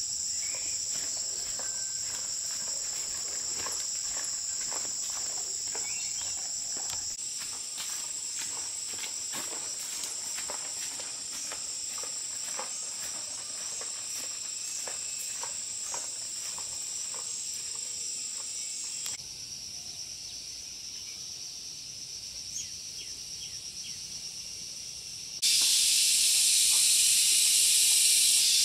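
Insects droning steadily in a high band, with scattered light clicks and knocks. After an abrupt cut about two-thirds of the way in the insects drop away, and near the end a loud, steady hiss starts suddenly.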